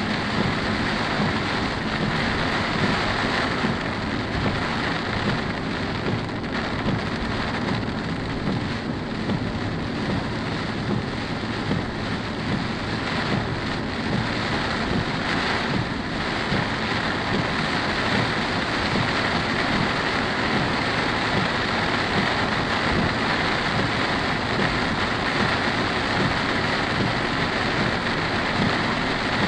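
Heavy rain beating steadily on a car as it drives, a dense, unbroken rush of noise.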